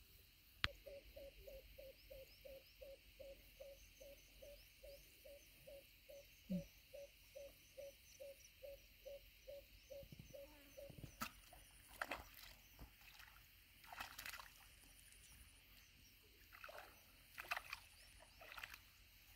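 Near silence with faint outdoor sounds: a soft low note repeated evenly about three times a second for the first ten seconds, faint high chirps, and a few light clicks and rustles in the second half.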